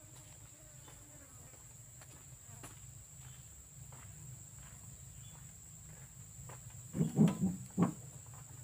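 Faint footsteps on a dirt track, then a quick run of about four heavy thuds about seven seconds in, at the back of a pickup loaded with oil palm fruit bunches. A steady high insect drone runs behind.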